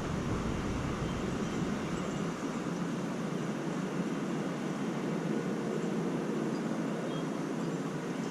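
Strong gusty wind blowing, a steady rushing noise.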